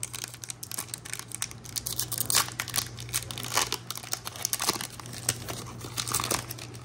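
Foil wrapper of a Pokémon booster pack crinkling as it is handled and torn open: a dense, uneven run of small crackles.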